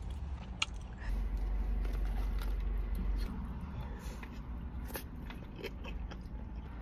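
Close-up eating sounds: biting and chewing soft, saucy food, with scattered light clicks of wooden chopsticks against a plastic tub, over a low steady rumble.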